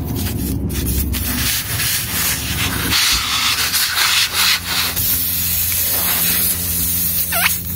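Puncture-repair insertion tool and rubber plug rubbing and scraping against the tyre rubber as the plug is forced into the puncture hole, with a brief squeak near the end.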